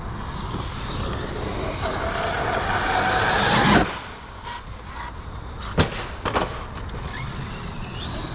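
Electric drivetrain of an Outcast 8S RC truck (1100kV brushless motor, Hobbywing Max 5 G2 ESC) whining up in pitch under throttle for about two seconds, then cutting off suddenly as the throttle is released. A couple of sharp knocks follow, typical of the truck hitting or landing on the dirt.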